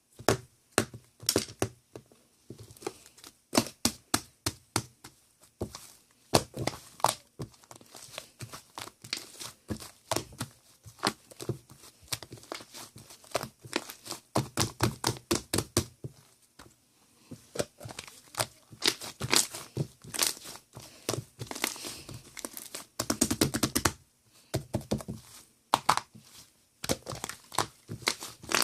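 Crinkling and tearing sounds: a dense, irregular run of sharp crackles and taps, with a thicker rustling stretch near the end.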